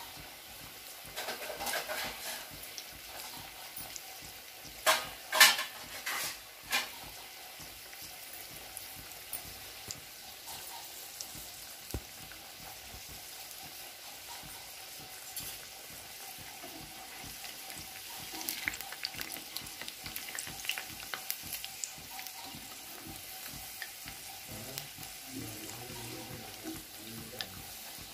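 Chana dal and urad dal vadas deep-frying in hot oil in a kadai: a steady sizzle of fine crackles, with a few sharp, loud pops about five to seven seconds in. The vadas are being par-fried in oil kept not too hot, so that they only lightly colour.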